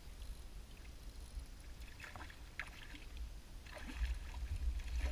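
Water splashing and sloshing beside a small boat in short irregular bursts from about two seconds in, over a low wind rumble on the microphone.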